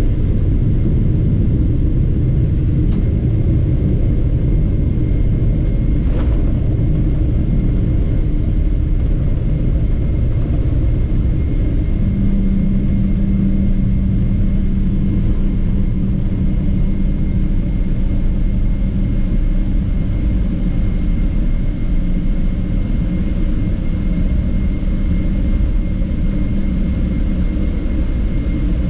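Boeing 777-300ER taxiing slowly, heard from inside the cabin beside its GE90 engine: a steady low rumble of the engines at idle and the wheels on the taxiway. A steady hum joins about twelve seconds in.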